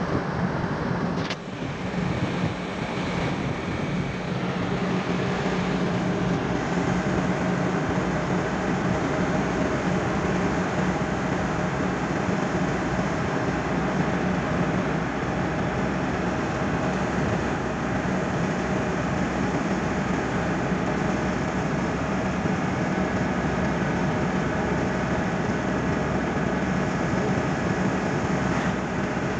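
Car driving at highway speed, heard inside the cabin: a steady drone of engine, tyre and wind noise with a constant low hum. A single short knock comes about a second in.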